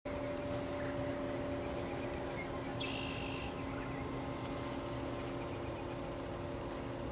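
Steady outdoor background noise with a constant low hum, and a brief high chirp about three seconds in.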